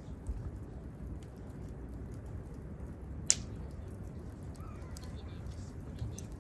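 Wood campfire crackling: scattered small snaps over a low, steady noise, with one loud sharp pop about three seconds in.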